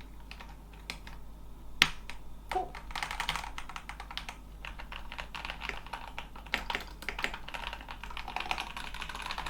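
Keys of a Keychron K8 Pro mechanical keyboard clacking under repeated presses. One sharp click comes a little before two seconds in, then a dense run of keystrokes follows for most of the rest.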